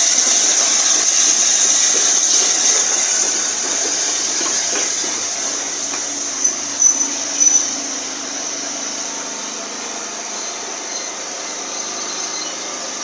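Steam-hauled passenger train pulling out: a steady hiss of steam and the rolling of the coaches, fading as the train draws away. A few brief high squeaks come about halfway through.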